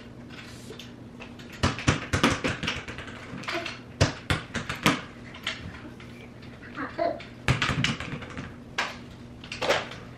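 Irregular clattering, knocks and clicks of basketball hoop kit parts being handled and fitted together, in several bursts, over a low steady hum.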